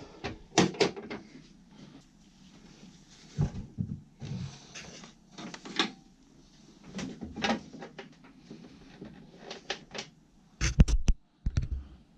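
Scattered clicks, taps and light knocks of hands working with rubber hose and fittings, with brief rustling between them and a few heavier thumps near the end.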